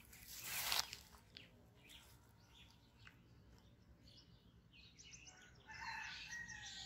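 Birds chirping, busiest from about two-thirds of the way in. A brief loud rustling swish comes about half a second in, the loudest sound here.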